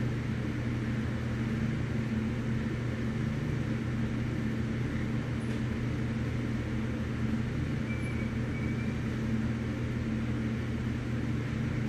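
Steady low machine hum that stays even and unchanging throughout.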